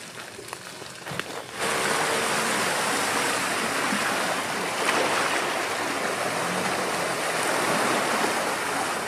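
Land Rover Defender's tyres ploughing through a muddy, water-filled rut: a steady rush of splashing and sloshing water that starts suddenly about a second and a half in.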